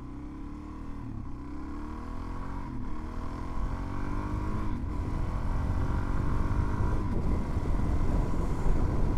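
Suzuki DR-Z400's single-cylinder four-stroke engine accelerating through the gears: its pitch climbs, drops at each upshift and climbs again about three times, getting steadily louder as speed builds, with a rising rush of noise toward the end.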